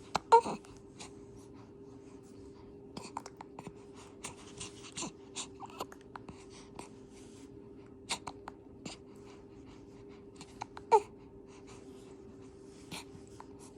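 Hiccups: a loud, short hiccup with a quick falling squeak about half a second in and another about 11 seconds in, with faint clicks and small body sounds between, over a steady hum.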